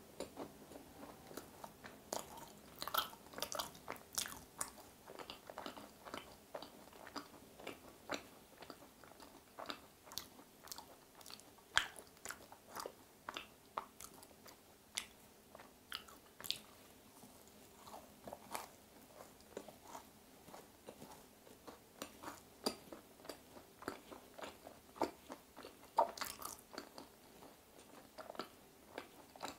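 Close-up chewing of a vanilla crème brûlée macaron with a torched-sugar top: quiet, irregular wet mouth clicks and small crunches.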